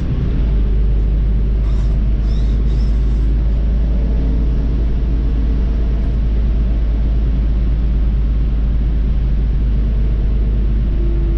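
City bus driving, heard from inside the passenger cabin: a steady low rumble of drivetrain and road noise. A few faint high chirps sound about two to three seconds in.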